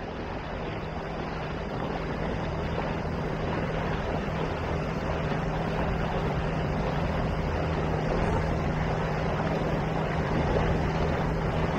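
A MacGregor 26 sailboat's outboard motor running at a steady cruising speed, with a constant low hum, water rushing along the hull and wind on the microphone. The sound grows slightly louder over the first few seconds.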